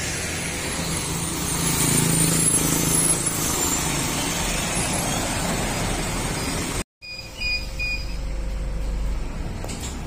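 A city bus pulls up at the stop, its engine running loud at first and then steadying. After a cut, the engine rumbles low inside the bus and a few short high beeps sound.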